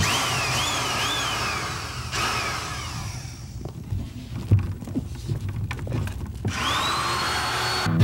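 Corded electric drill with a long bit: the motor whines up and down in quick trigger pulses, then goes quieter with a few knocks. Near the end it spins up again and runs steadily.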